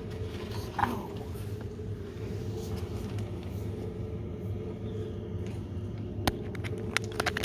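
Steady low mechanical hum in a small room, with a few sharp clicks near the end.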